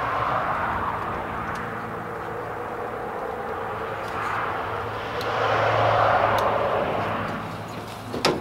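A passing vehicle: a broad traffic rumble with a steady low hum that swells, eases, and builds to its loudest about six seconds in before fading. A single sharp click comes near the end.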